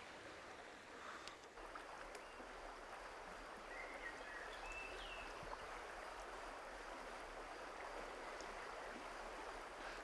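Steady, faint rush of river water flowing over a shallow trout-stream bed, with a couple of brief chirps about four and five seconds in.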